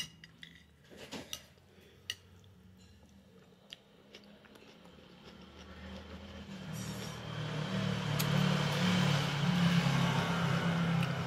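Cutlery clinks against a plate a few times. Then a low rumbling hum with a hiss swells up over a few seconds and holds loud near the end.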